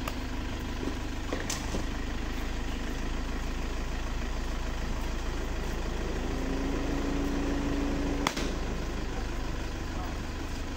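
Steady low rumble of a motor vehicle engine idling, with a sharp click about eight seconds in.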